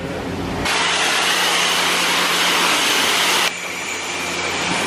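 Pressure-washer wand spraying water onto a car: a steady, loud hiss of spray over a low hum. The hiss jumps up about two-thirds of a second in and drops back somewhat around three and a half seconds.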